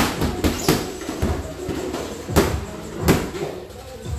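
Boxing gloves punching focus mitts: a series of sharp smacks at an irregular pace, the loudest right at the start and two more strong ones in the second half.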